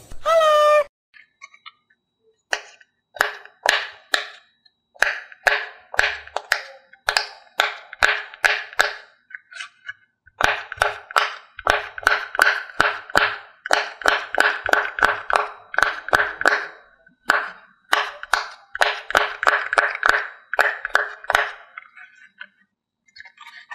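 Silicone pop-it fidget toy having its bubbles pressed in one after another by a finger: a long run of short pops, about two or three a second, with brief pauses now and then.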